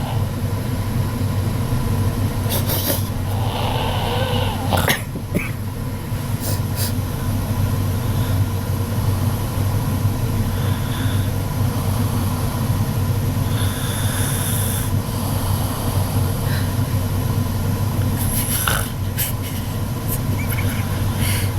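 A woman snoring in her sleep: a loud, low rumble that runs on with little let-up.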